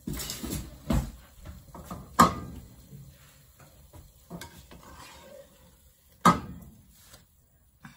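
A spoon stirring and scraping sautéed tomatoes in a stainless steel pot, with two sharp knocks against the pot, about two seconds in and about six seconds in.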